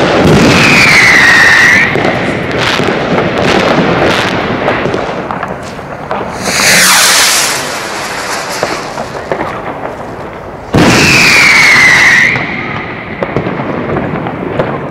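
Zink Bombenrakete 916 sky rockets with silver crackle stars. Two loud rushes about eleven seconds apart, each with a falling whistle-like tone, are each followed by a long run of crackling and popping from the silver crackle stars, with another loud rushing burst about halfway through.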